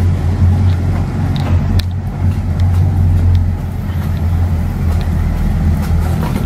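Steady low machine drone echoing in an underground parking garage, with a few light clicks over it.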